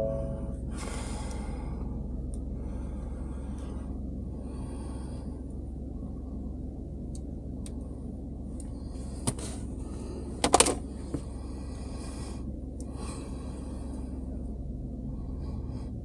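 Steady low hum inside a pickup truck cab, with soft breathy rustles now and then and a quick cluster of sharp clicks about ten and a half seconds in, after a single click a second earlier.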